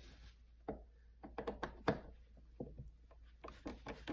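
A few quiet, scattered clicks and knocks of a screwdriver on a receptacle's mounting screws as it is tightened into the electrical box.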